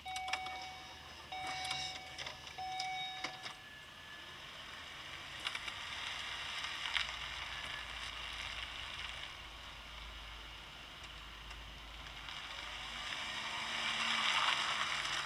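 A car's warning chime sounding three times, each a steady tone of about a second, heard from inside the cabin. Then the car pulls away, its low engine rumble and road noise swelling near the end.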